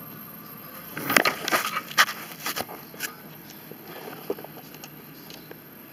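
Handling noise from the recording device being grabbed and moved by hand: a cluster of knocks, clicks and rubbing about one to three seconds in, then a few faint taps.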